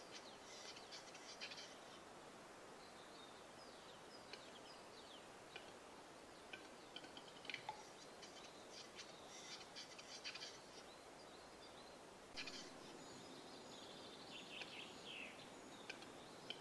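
Faint song of a western capercaillie: dry clicks and scratchy, rasping notes, the courtship song of a displaying male.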